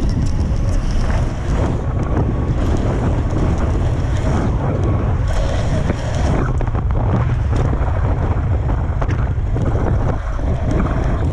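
Heavy wind buffeting a BMX racer's action-camera microphone at racing speed: a loud, steady, low rushing that runs without a break, with a few faint clicks from the bike over the track.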